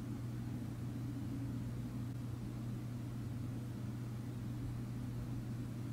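A steady low hum of background room noise, even and unchanging throughout.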